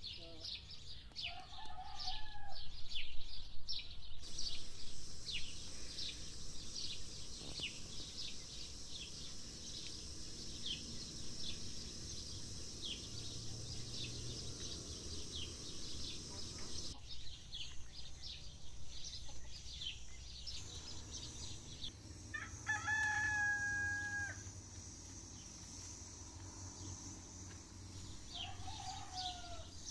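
A rooster crows once, one long call of about a second and a half, over constant chirping of small birds. Two shorter, lower calls come near the start and near the end.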